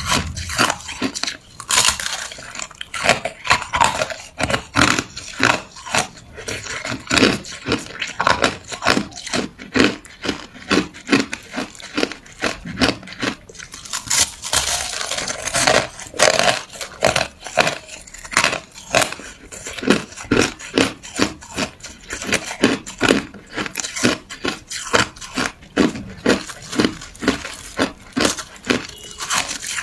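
A person chewing ice, with loud, sharp crunches coming in a quick, irregular run.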